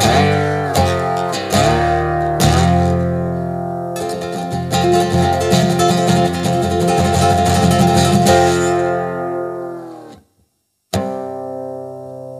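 Acoustic blues guitar played with a bottleneck slide: strummed chords with sliding pitches, breaking off about ten seconds in, then one last chord struck and left to ring out and fade.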